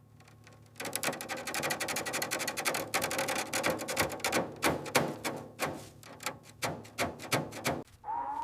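Rapid run of small hard clicks and taps starting about a second in, dense at first and then thinning to separate taps.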